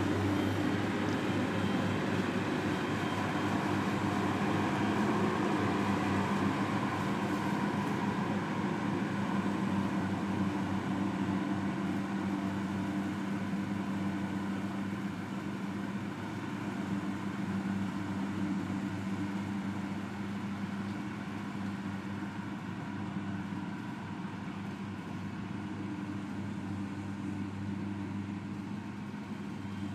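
Engine of a farm machine running steadily, a low, even hum that grows slightly quieter in the second half.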